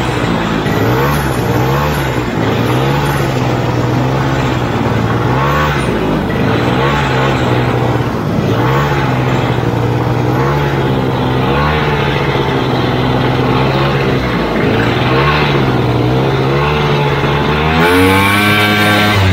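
Vintage AMF Ski Daddler snowmobile's single-cylinder two-stroke engine running under way, its pitch rising and falling again and again as the throttle is worked. It revs up hard near the end.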